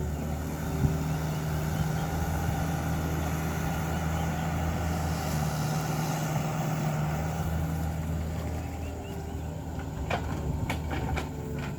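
Excavator's diesel engine running steadily, then easing off about three seconds from the end, followed by a few sharp metallic knocks.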